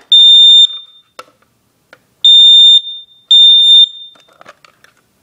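Kidde NightHawk smoke alarm sounding in full alarm, set off by smoke: loud, high-pitched beeps about half a second long, one near the start and two more about a second apart after a pause.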